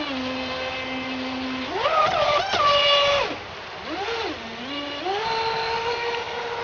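RC jet boat's water-cooled 3900KV brushless motor driving a 19 mm water jet, whining as it runs. The pitch climbs sharply about two seconds in as the throttle opens and holds high for about a second. It then drops off, blips up and down once, and settles to a steady whine at a middling pitch.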